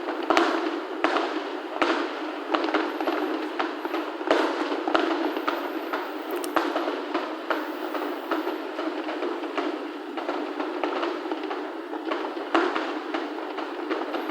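Fireworks finale barrage: many shells bursting in quick succession, several sharp bangs a second over continuous crackling. The bangs come through thin, without their deep low end.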